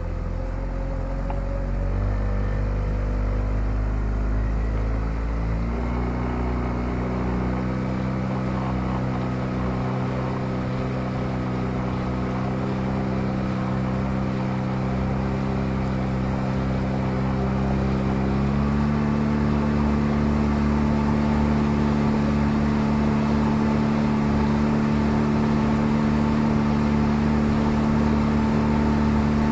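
Outboard motor of a small boat running under way, its pitch stepping up three times, about two, six and eighteen seconds in, as the boat speeds up, over the rush of water along the hull.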